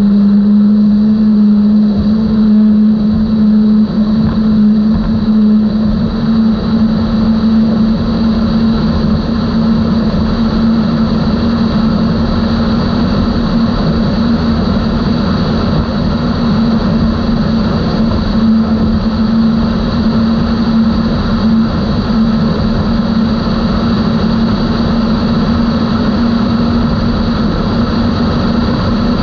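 Outboard engines of a 32-foot Skater catamaran running at a steady high-speed cruise: one strong, even engine note that edges up slightly in the first couple of seconds and then holds, over a constant rush of noise.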